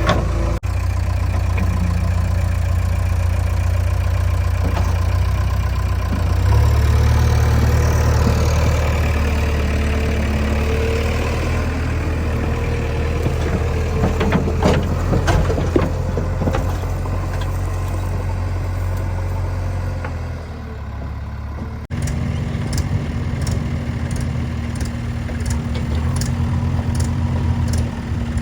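Heavy diesel engine running with a steady low drone, working harder from about six seconds in, with a few knocks in the middle. After a sudden cut near the end, an engine runs at a lower, steadier note with faint regular ticking.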